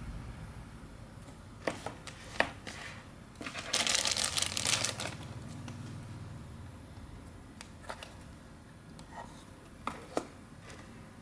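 Hands handling a mobile Wi-Fi modem and its packaging: a few sharp clicks and taps, and a rustle of packaging lasting about a second and a half about four seconds in.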